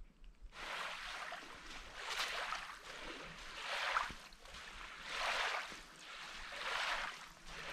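Canoe paddle strokes through water, a rhythmic swish and splash about every second and a half.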